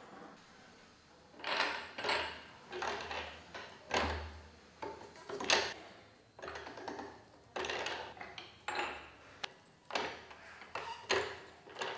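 Hand-cranked jewellery rolling mill flattening a small metal bar between its steel rollers: a series of short grinding clunks from the gears and rollers, about one a second.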